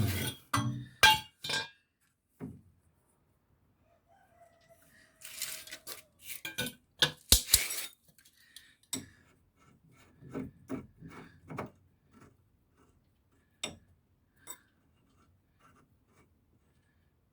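Steel tools clinking and knocking against car suspension parts in irregular sharp strikes, with a thick run of clinks in the middle, as a ball-joint puller is fitted and worked on a VAZ 2114 front ball joint.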